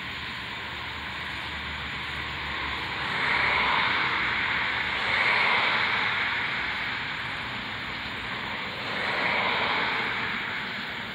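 Traffic noise from vehicles passing on a road, swelling and fading three times: about three seconds in, again about five seconds in, and near the end.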